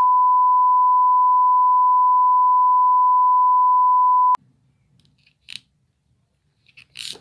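Steady 1 kHz test tone, the beep that goes with TV colour bars, one loud unbroken note that cuts off suddenly about four seconds in. A few faint short clicks follow.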